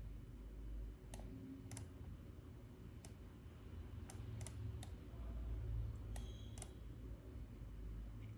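Scattered clicks at a computer, about eight at uneven spacing, over a low steady hum.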